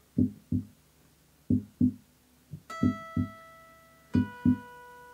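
Instrumental song intro on acoustic guitar and electric bass over a looped drum track: soft low beats in pairs repeating a little more than once a second, joined about two and a half seconds in by single high notes that ring on, a new one about every second and a half.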